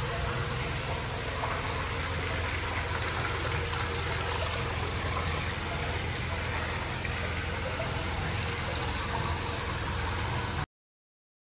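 Steady rush of hot-spring water flowing into an indoor bath, with a low hum underneath. It cuts off abruptly near the end.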